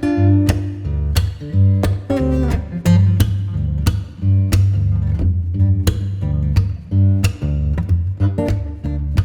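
Background music: strummed acoustic guitar over a steady beat and bass.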